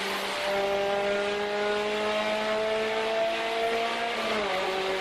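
Honda K20 inline-four engine running at high revs under load, its pitch climbing slowly, then dropping about four seconds in.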